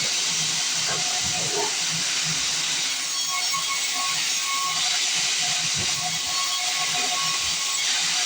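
Band sawmill blade cutting through a log: a steady, even hiss of sawing with a few faint steady tones under it.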